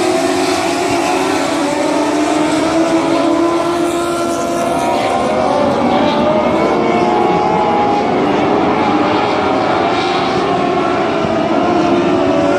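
A pack of dwarf cars racing, their motorcycle engines running at high revs together. The sound is a loud, steady drone of overlapping engine notes, each pitch wavering up and down as the cars accelerate and lift.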